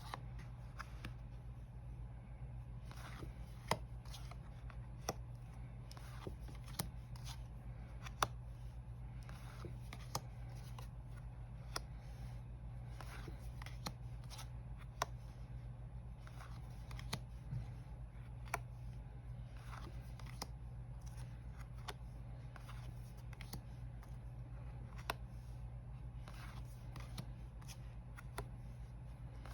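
Tarot cards being handled and sorted on a table: soft sliding swishes and light taps of cards being laid down every second or so, faint, over a steady low hum.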